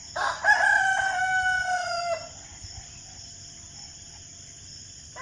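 Rooster crowing once, a single call of about two seconds that ends abruptly.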